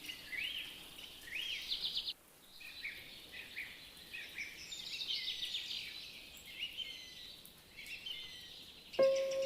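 Several small birds chirping and twittering over one another in quick, high notes, with a short break about two seconds in. Just before the end a steady, lower tone starts suddenly.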